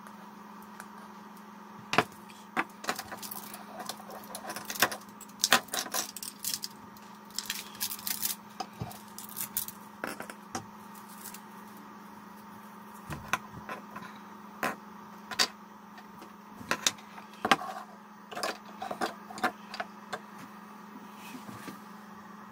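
Irregular clicks and knocks of hard 3D-printed plastic parts being handled, pressed together and set down on a wooden desk, with a short lull near the middle. A faint steady hum runs underneath.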